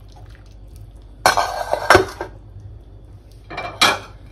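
Kitchen tongs clattering and scraping against a stainless steel pot while spaghetti is lifted out of the water: one burst about a second in ending with a sharp knock, and a shorter one near the end.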